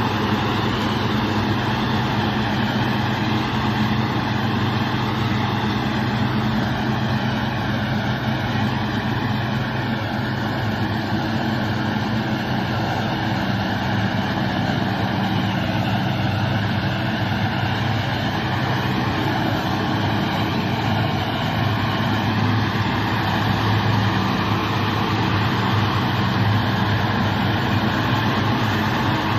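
A Deutz-Fahr 100 hp tractor's diesel engine running steadily under load as it pulls a Maschio Extreme 266 HTI round baler, with the baler's pickup and rollers working along with it.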